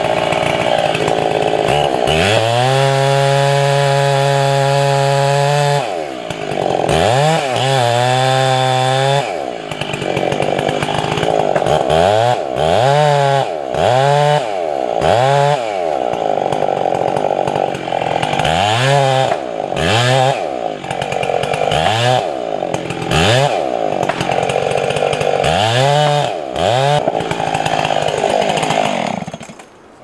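Two-stroke chainsaw with a long bar cutting into a large tree trunk at full throttle. Its high engine note repeatedly sags under load and climbs back, about once a second in places. The saw is let off and the sound drops away near the end.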